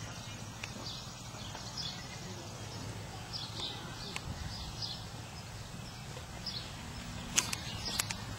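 Outdoor ambience: small birds chirping every second or so over a steady low rumble of wind and background noise, with a few sharp clicks near the end.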